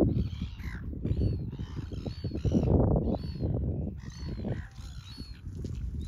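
A flock of gulls calling, with many short harsh cries overlapping in quick succession, over a steady low rumble.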